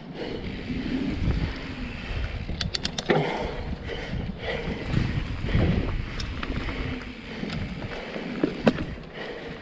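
Mountain bike rolling along dirt singletrack: tyre rumble over packed dirt and leaf litter with wind buffeting the camera microphone. A quick run of sharp clicks comes about three seconds in and a single sharp knock near the end.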